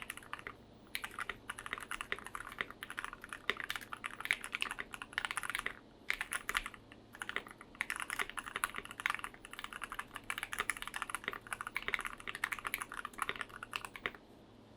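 Fast typing on a Tofu65 mechanical keyboard with lubed and filmed Gateron Ink Black V2 linear switches in a brass plate under PBT keycaps, a muted, thocky keystroke sound. The keystrokes come in quick runs with brief pauses and stop just before the end.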